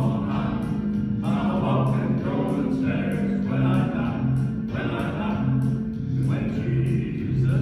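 Live gospel music from a male vocal quartet: men's voices singing in harmony over accompaniment with a steady bass line stepping between two low notes about once a second.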